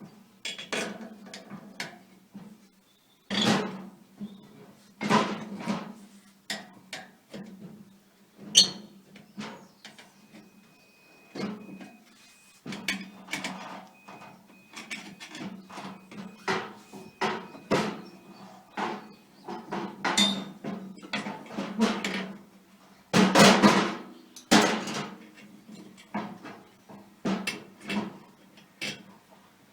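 Screwdrivers knocking, clinking and scraping against a steel wheelbarrow wheel rim while a tyre is levered off it: irregular sharp knocks, loudest in a cluster about three-quarters of the way through.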